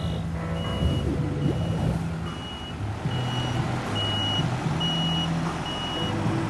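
Reversing alarm on a Merlo Panoramic P40.17 telehandler, a high beep repeating a little more than once a second over a low rumble.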